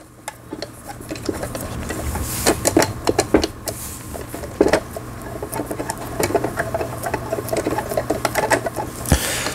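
Lion Line 17 household sewing machine, a Janome-built model, running: a steady motor hum with irregular clicking and rattling from the mechanism. Its gearbox was broken by heavy use in a commercial shop.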